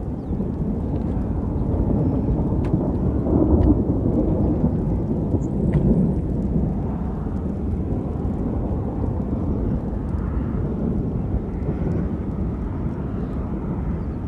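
Rolling thunder from a supercell thunderstorm, a continuous low rumble that swells twice, about three and a half and six seconds in.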